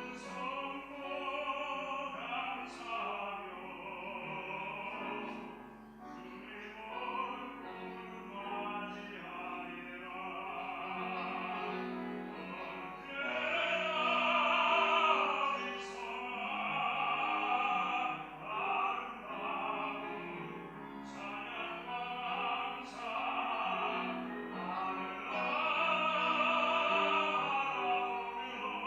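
Solo baritone singing a sacred song in a full, operatic classical voice, in long held phrases with short breaths between them.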